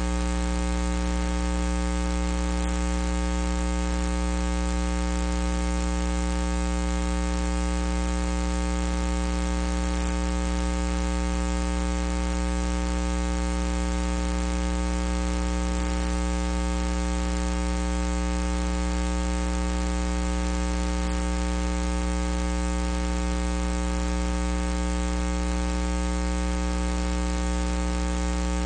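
Steady 60 Hz electrical mains hum with many evenly spaced overtones and a hiss of static. It runs without change and covers any sound from the ring.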